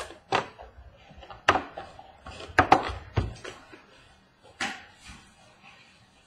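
Small cardboard trading-card boxes handled and set down on a wooden table: about half a dozen sharp knocks and taps, the loudest near the middle.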